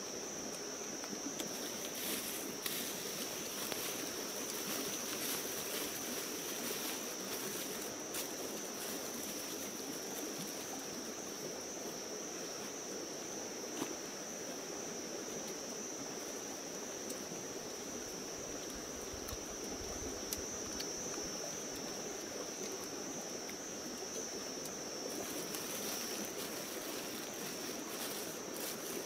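An insect's steady high-pitched trill over the even rush of a stream, with a few faint clicks now and then.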